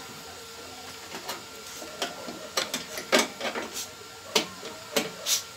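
Irregular sharp clicks and taps of hand tools and metal wire connectors being handled at the terminals of a microwave oven's high-voltage transformer, about nine in all, bunched in the second half.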